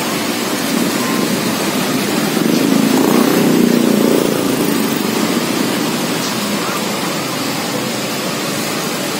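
Steady hiss and hum of road traffic, swelling as a vehicle passes about three seconds in.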